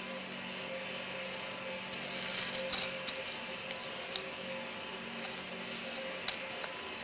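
Plastic drinking straw scraping and tapping on a rough gritty floor: a brief rubbing scrape and a handful of light, separate clicks over a steady background hum.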